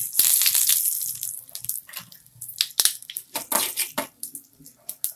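Fresh curry leaves dropped into hot oil with mustard seeds in a steel kadai: a loud burst of sizzling about the first second, then scattered sharp pops and crackles as the tempering splutters.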